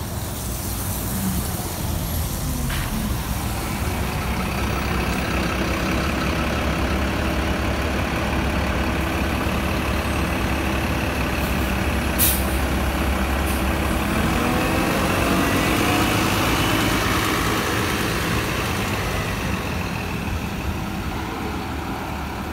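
Nova Bus LFS city bus standing at a stop with its engine running in a steady low rumble. A short, sharp air-brake hiss comes about twelve seconds in. Then the engine and drivetrain rise in pitch as the bus pulls away.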